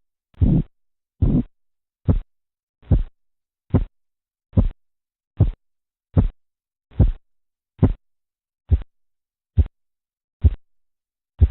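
Korotkoff sounds through a stethoscope over an artery as a blood pressure cuff deflates: a steady pulse of beats a little under a second apart. The early beats are longer and fuller, the later ones shorter and sharper.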